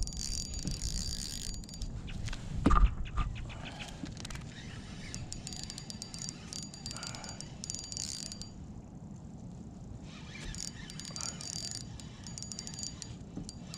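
Fishing reel cranked in bouts while a hooked fish pulls on a hard-bent rod: a fine high whirring ticking that starts and stops several times. A single loud thump about three seconds in.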